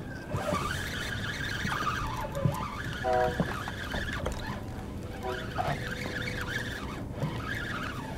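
Spinning reel's drag buzzing in spurts, its pitch wavering, as a hooked fish pulls line against the bent rod. Two short pitched sounds come about three and five seconds in.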